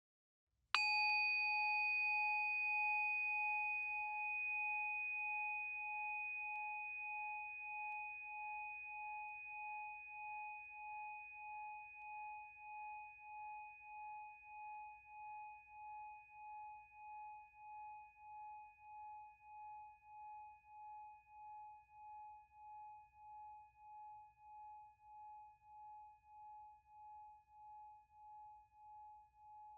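A 3.0-sun 18-karat gold orin (Buddhist altar bell) struck once, then ringing with a clear bell tone that fades very slowly over about half a minute. The ring wavers slowly and evenly in loudness as it decays.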